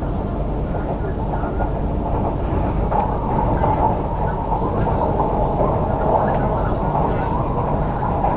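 An MTR CRRC Qingdao Sifang 'Q Train' electric multiple unit running between stations, giving a steady rumble of wheels on the track.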